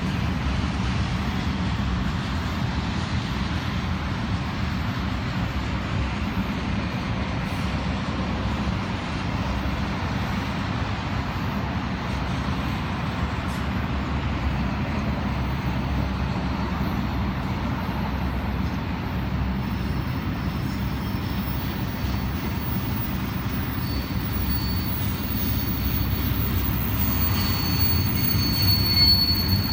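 Double-stack intermodal freight train rolling past: a steady rumble of wheels on rails and cars, with a thin high wheel squeal coming in near the end.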